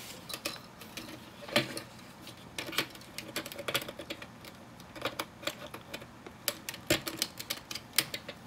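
LEGO plastic bricks clicking as pieces are handled and pressed onto a boat hull: a run of irregular sharp clicks, with louder snaps about a second and a half in and near seven seconds.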